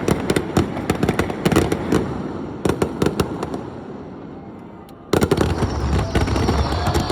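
Aerial fireworks bursting in rapid crackling volleys that fade off toward the middle. About five seconds in, a loud new barrage of bangs and crackle starts suddenly.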